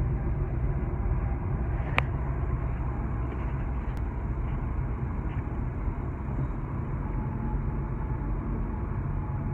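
Steady road and engine noise inside a car's cabin at highway speed: a continuous low rumble with no change in pitch. A single sharp click sounds about two seconds in.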